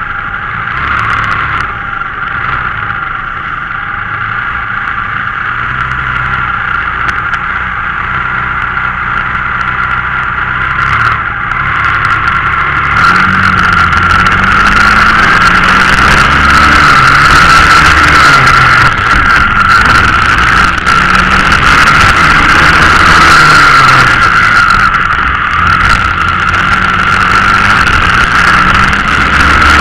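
Onboard sound of a Swissauto 250 four-stroke kart engine. It runs softer at lower revs for the first dozen seconds, then opens up about 13 seconds in and goes on revving up and down as the kart accelerates and brakes through the corners. A constant high-pitched rush sits over it the whole time.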